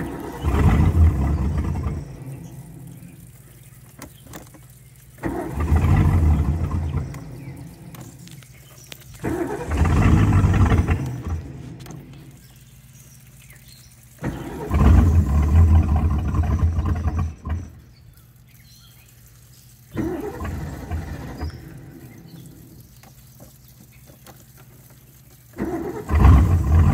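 The starter of a 351 Windsor Ford small-block V8 in a ski boat cranks it in six bursts a few seconds apart without the engine catching. The engine has been sitting, and its mechanical fuel pump has not yet pulled fuel up to it.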